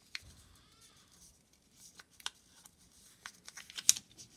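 Square of paper being folded and creased by hand: faint rustling and scattered small crinkles and clicks, quickening into a short run of sharper crinkles and taps near the end.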